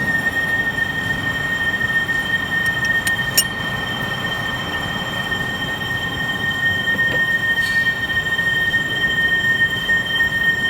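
16K20 metal lathe running with a steady high-pitched whine, with a few short clicks about three seconds in.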